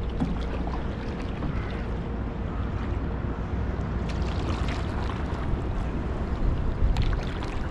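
Wind rumbling on the microphone over water sounds around a canoe on a river, with a few light splashes about halfway through and near the end.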